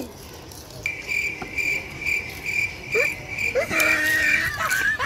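An insect trilling steadily at a high pitch, starting about a second in. Brief voice sounds come in near the end.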